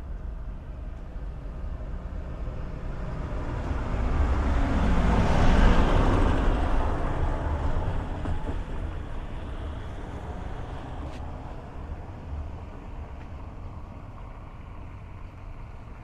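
A motor vehicle driving past. Its engine and tyre noise swell to a peak about five or six seconds in, then fade away slowly.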